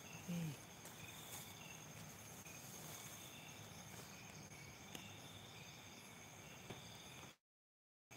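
Faint night chorus of crickets and other insects chirping steadily at several pitches, with a short vocal sound just after the start. The audio drops out completely for most of the last second.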